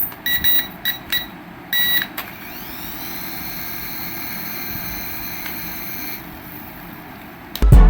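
A few short electronic beeps, then a small electric motor of a radio-control toy spinning up with a rising whine and running steadily for about four seconds before it stops.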